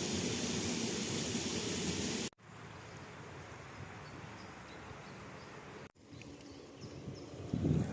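Outdoor nature recordings cut together: steady rushing water for about two seconds, then a quieter outdoor hush with faint high chirps, and near the end low rumbling gusts of wind on the microphone.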